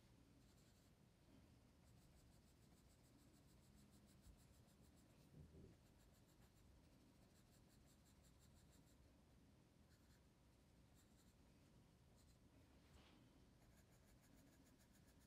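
Staedtler graphite pencil scratching faintly on paper in quick, repeated shading strokes, in runs that stop and start, with a soft low bump about five seconds in.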